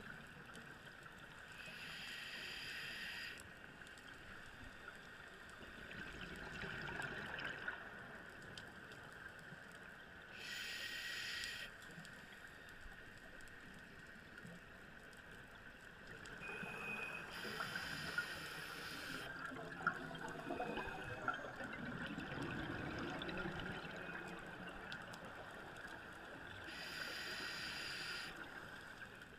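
Scuba diver breathing through a regulator, heard from inside an underwater camera housing: four short breaths spaced several seconds apart, with bubbling gurgles from exhaled air between them.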